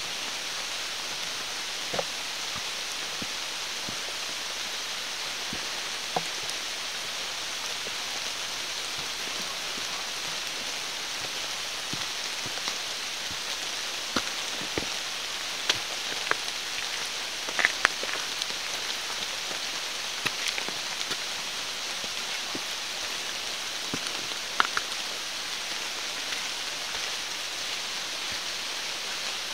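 Steady rain falling in a forest, an even hiss, with occasional sharp taps scattered through it.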